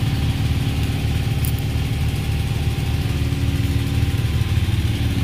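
Engines of fire engines running steadily outside, a low, even drone with no siren.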